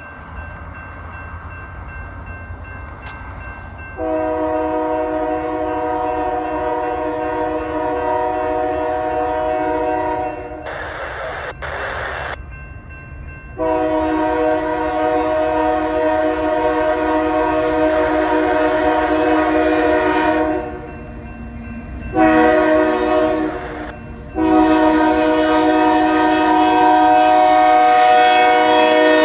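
Diesel freight locomotive's multi-chime air horn sounding the grade-crossing signal, long, long, short, long, over the low rumble of the approaching train.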